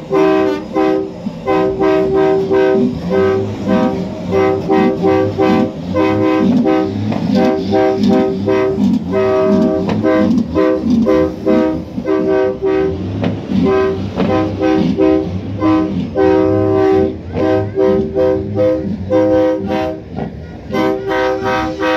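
Truck air horns of the multi-tone, train-horn type, blown in short rhythmic blasts of a chord, over and over. A lower wavering sound runs beneath the blasts in the middle stretch.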